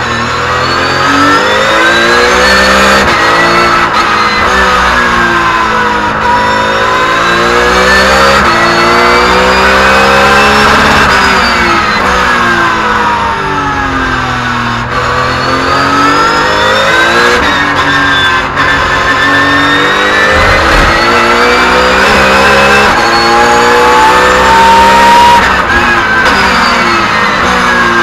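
Porsche 911 GT3 Cup race car's flat-six engine, heard from inside the cockpit, revving up through the gears and falling away on braking, with short breaks at the gearshifts.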